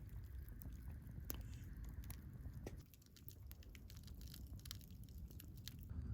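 Irregular small crackles and clicks, scattered and unevenly spaced, over a low steady rumble.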